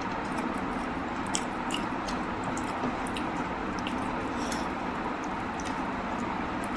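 Close-up eating sounds of spicy mutton curry and rice: soft wet squishes and small smacking clicks, scattered irregularly. A steady background hiss runs underneath.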